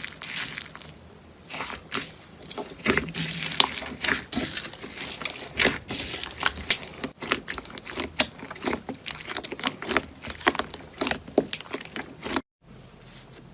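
Slime being squeezed and pressed by hand, giving dense, irregular crackling clicks and pops. It breaks off abruptly near the end.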